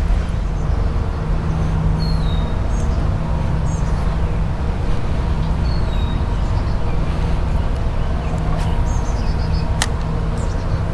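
Steady road traffic rumble with a low hum, with a few short bird chirps over it and a single sharp click near the end.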